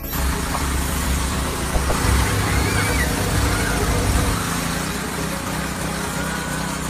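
Pressure washer running: a steady motor hum under the loud hiss of its high-pressure water spray.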